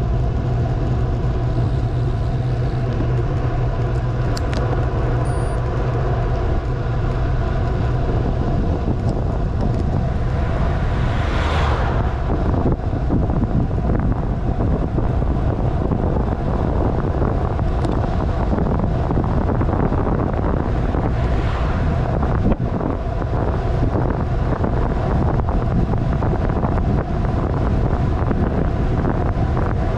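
Steady wind buffeting the microphone over a constant road rumble while moving fast downhill, with a brief louder whoosh about eleven seconds in.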